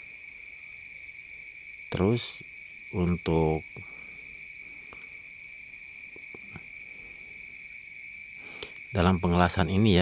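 A cricket's high, steady trill, unbroken and even in pitch, with a few short spoken words over it.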